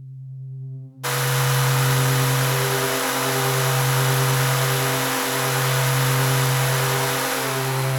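Household electric motor fan running: a steady low hum under a broad hiss, starting abruptly about a second in, with the hum dipping briefly about every two seconds.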